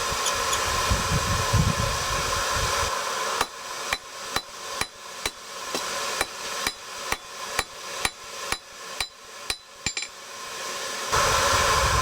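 Hand hammer striking hot steel on an anvil, about fifteen even blows at two or three a second, flattening and widening the end of a forged J hook for its nail holes. A steady rushing noise runs before and after the blows.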